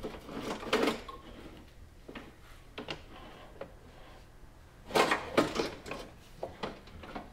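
Scattered light knocks, clicks and rattles of a car window regulator and frame assembly being lowered and worked into place inside a stripped door shell, with a louder cluster of knocks about five seconds in.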